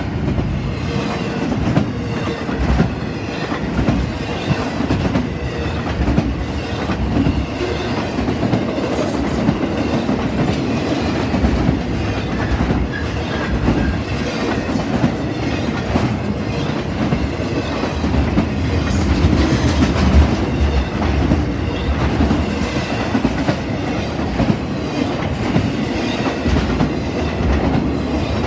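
Intermodal freight train rolling past at close range: a steady rumble of steel wheels on rail with repeated clacking as the wheel sets cross rail joints.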